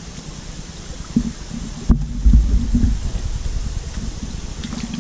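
Low rumbling thumps from the camera being handled and moved, with one sharp knock about two seconds in, over a steady low background hum.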